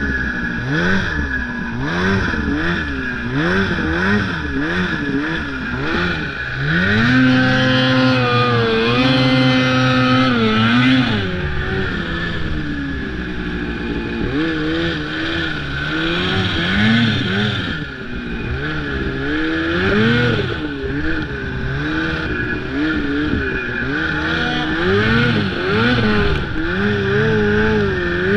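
Snowmobile engine revving up and down again and again as the rider works the throttle through deep snow. For several seconds in the middle it is held at high revs before dropping back. A steady high whine runs underneath.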